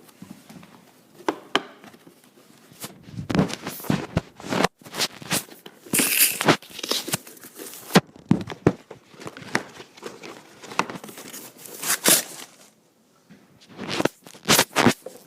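A remote control car's packaging being torn open and crinkled, in irregular rips and rustles. They pick up about three seconds in, pause briefly, and start again near the end.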